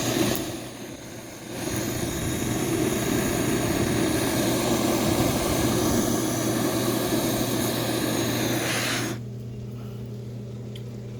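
Loud steady roaring rush from the rocket water heater being fired. It dips briefly about a second in, then cuts off suddenly near the end, leaving a low steady hum.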